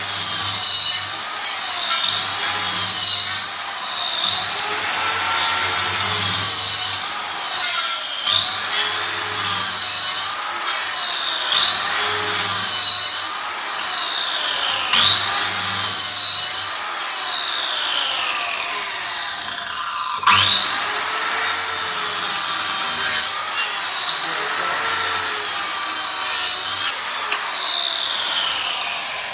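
Electric circular saw running and cutting, its high motor whine sagging in pitch again and again as the blade takes load and climbing back each time. About two-thirds of the way through the whine drops out and spins back up, and near the end it winds down.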